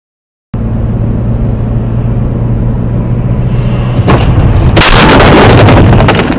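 Loud, steady rumble of a car driving, heard through a dashcam microphone, then a collision: sharp knocks about four seconds in and a loud crash noise from about five to six seconds in.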